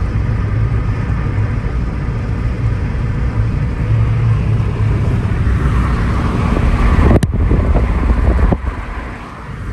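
Steady low road and engine rumble inside a moving car's cabin. A sharp click sounds about seven seconds in, a fainter one about a second later, and then the rumble drops noticeably quieter.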